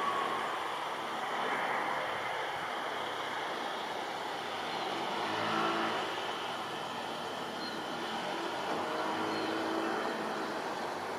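Turbofan engines of an Embraer regional jet on final approach with its landing gear down: a steady, distant rushing rumble.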